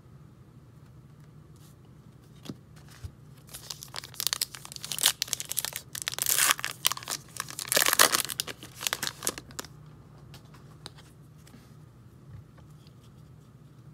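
The wrapper of a Topps Gypsy Queen baseball card pack being ripped open by hand, crinkling and tearing for about six seconds, starting a few seconds in and stopping about two-thirds of the way through.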